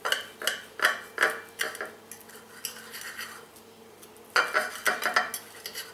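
A knife and fork cutting through a fried pancake pie on a porcelain plate, the blade sawing and the cutlery scraping and clicking against the plate in quick strokes: a run of them at the start, then a second spell a little after the middle.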